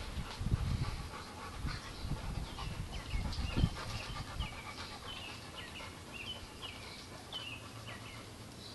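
Dog panting, with irregular low thumps over the first few seconds and a string of short high chirps in the middle.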